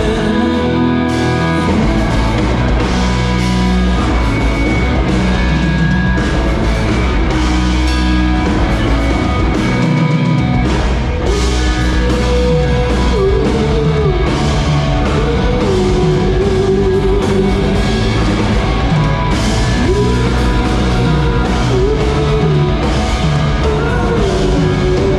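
A live rock band plays loud and steady, with guitars, heavy bass and drum kit. In the second half a melody line bends between held notes.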